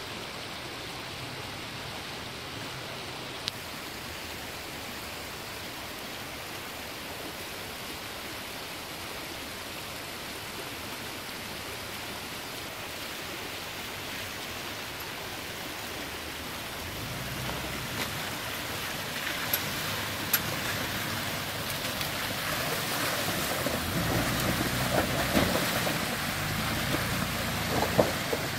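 Shallow mountain creek rushing steadily over stones. About 17 s in, a Toyota Land Cruiser 80-series engine comes in at a low, steady hum as the truck crawls over the rocky washout, growing louder toward the end, with a few sharp knocks of rock under the tyres, the loudest near the end.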